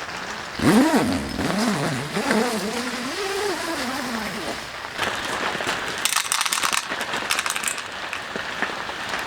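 A dog's wavering, whining howl that rises sharply and then wobbles up and down in pitch for about four seconds, followed by heavy rain pattering on the shelter.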